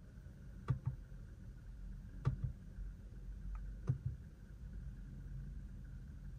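Drive-mode button on a 2024 Hyundai Sonata's centre console pressed three times, each press a quick double click, about a second and a half apart, cycling the car through its drive modes. A low steady hum runs underneath.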